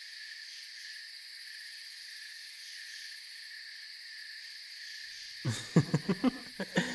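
Steady chorus of crickets and insects. About five and a half seconds in comes a quick run of crunching rustles, several strokes close together.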